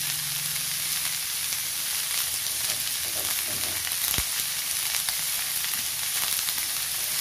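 Chopped onion flower stalks sizzling steadily in hot mustard oil in an aluminium kadai, stirred with a spatula that scrapes and clicks against the pan, with one sharper knock about four seconds in.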